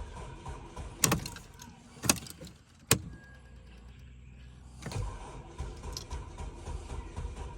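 Three sharp knocks about a second apart over a low rumbling background, from someone handling a vehicle that will not start; after the third the rumble drops away for about two seconds, then comes back.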